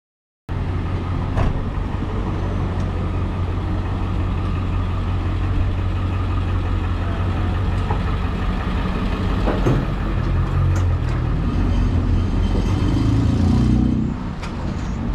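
City street traffic: a steady low rumble of vehicle engines and road noise with a few light clicks. It cuts in about half a second in, swells near the end, then drops off.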